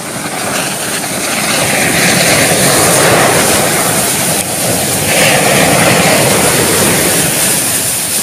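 Masses of match heads flaring at once in a burning matchstick pile: a loud, rushing roar of flame that swells about two seconds in and again about five seconds in.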